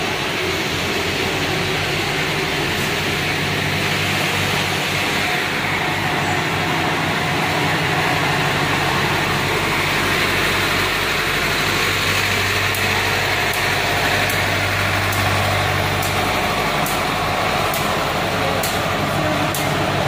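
Heavy diesel engines of road-paving machinery, a tandem road roller and an asphalt paver, running steadily, with a scatter of sharp clicks in the second half.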